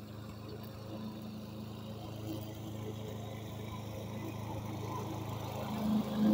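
Walk-behind lawn mower engine running with a steady hum, slowly growing louder.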